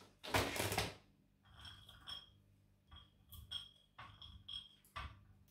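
Light clinks of fingers and walnut pieces against a plate on a kitchen scale, a scattered handful of small taps, some with a brief ring.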